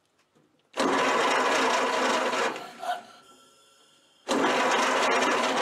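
Ford Model A starter with its newly replaced starter drive cranking the engine in two bursts of about two seconds each. Each burst is a steady, even whirring grind. The drive now engages the flywheel and turns the engine over: the repair works.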